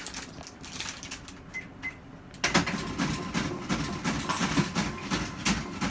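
Checkout at a shop counter: a cash register being worked, with light clicks at first and then, about two and a half seconds in, a sudden busier run of clicking and rattling.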